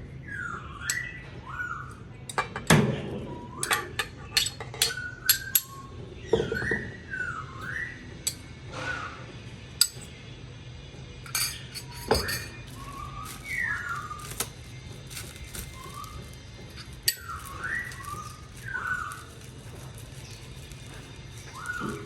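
Short whistled bird calls repeating every second or two, with sharp clinks and knocks of kitchen utensils and dishes, most of them in the first half, over a steady low hum.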